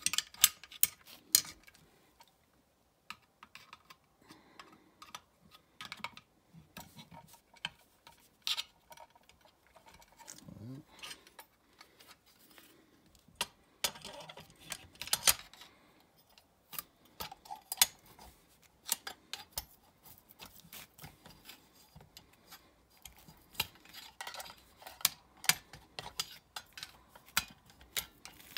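Irregular metal clicks, taps and knocks from a screwdriver and the parts of a Quadrajet four-barrel carburetor as the throttle-body base is wedged loose and separated from the main body.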